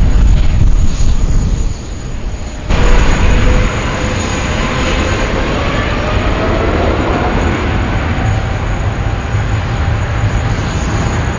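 Jet airliner engines with a heavy low rumble. About three seconds in the sound cuts abruptly to a Boeing 777-300ER's GE90 engines whining, several tones gliding slowly upward over the steady roar.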